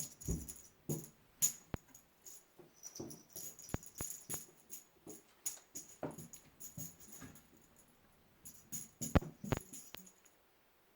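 A jingle-bell toy being batted and tossed about: short bursts of bell jingling and rattling with soft knocks, stopping about a second before the end.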